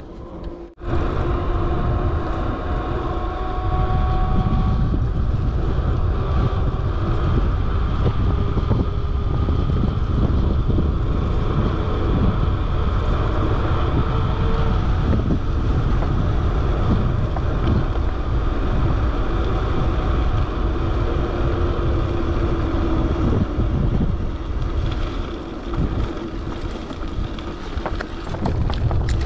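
Heavy wind noise buffeting an action camera's microphone while cycling at speed. It starts suddenly about a second in and stays steady, with a faint steady hum underneath.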